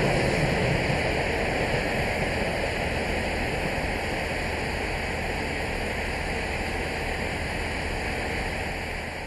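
Steady rushing rumble of a train running through at speed behind steam locomotive 60163 Tornado, slowly fading as it draws away.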